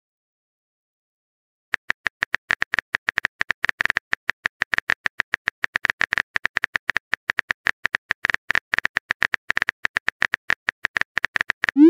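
Phone-keyboard typing sound effect: a long stream of quick, light clicks, several a second, starting after a second or two of silence while a chat message is typed. Right at the end a rising swoop sounds, the message being sent.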